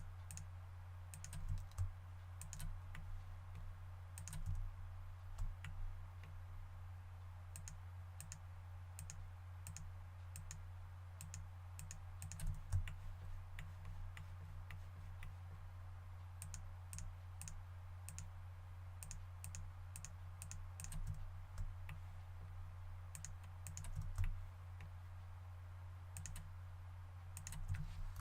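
Irregular clicking of a computer mouse and keyboard, scattered single clicks and short runs, over a steady low hum.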